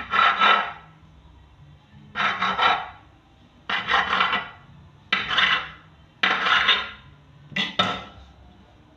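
A kitchen knife slicing through a log of dough and scraping across a floured work table with each cut: six short scrapes, about one every second and a half.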